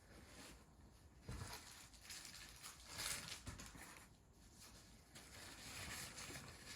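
A woman blowing her congested nose into a tissue: soft blows about a second in, the strongest about three seconds in, and a longer one near the end.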